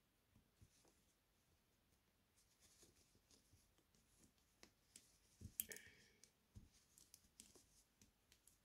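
Faint clicks of metal knitting needles and rustling of wool yarn as a cable is worked and the knitting handled, with a few louder clicks a little past the middle.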